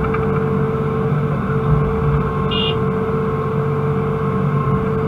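Excavator's diesel engine and hydraulics running steadily, heard inside the cab, as it swings a loaded bucket and dumps it into a truck: a low throbbing drone with a constant whine over it. A brief high beep about halfway through.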